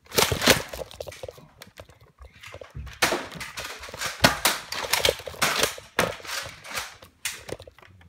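A run of irregular thumps, knocks and rustles, about one or two a second, from a handheld camera being carried and jostled through the rooms of a house.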